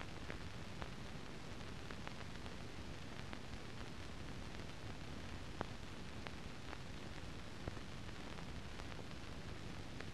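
Steady hiss with scattered faint clicks and crackles, the sharpest about halfway through: the empty soundtrack of a silent newsreel film transfer, with no recorded sound.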